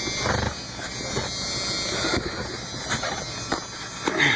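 Pickup truck driving slowly over a rough hay field, heard from inside the cab: a steady engine and road noise with a few short knocks and rattles as it bounces.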